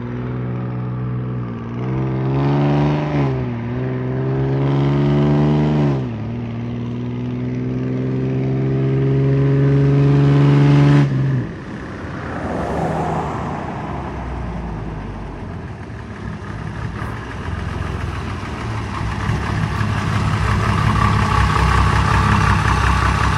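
Large GMC Toroflow DH478 V6 diesel truck engine accelerating through the gears of its six-speed Allison transmission. The engine note climbs and drops back at each upshift, about four times. From about halfway through it settles into a rougher, louder running sound that grows toward the end.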